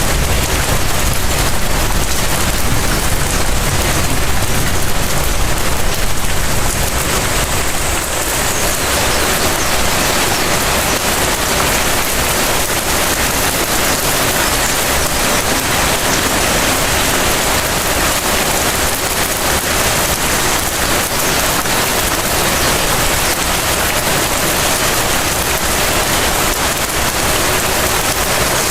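Light rain falling steadily, a dense even hiss of drops pattering on surfaces in front of a house. A low rumble sits under it for the first several seconds, then fades away.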